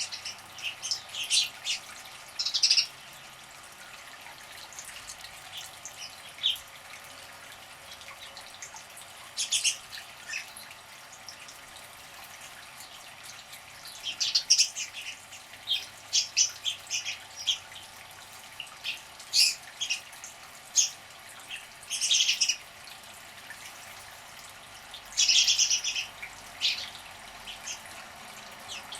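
Small birds chirping in short, irregular clusters of high-pitched notes, with quieter gaps between the bursts.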